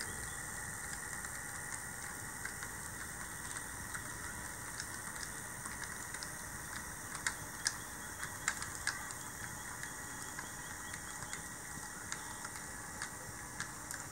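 HO-scale model diesel locomotive and caboose rolling along the track, the wheels ticking irregularly over rail joints and points, with a burst of louder clicks about halfway through over a steady low hiss.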